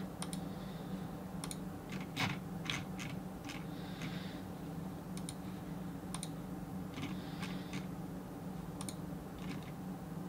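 Scattered computer keyboard and mouse clicks, a dozen or so at irregular intervals, over a steady low hum.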